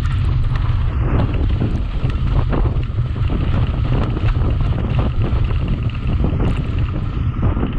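Wind buffeting the microphone of a camera on a mountain bike riding at speed, a steady heavy rumble, with irregular knocks and rattles from the bike on the rough track.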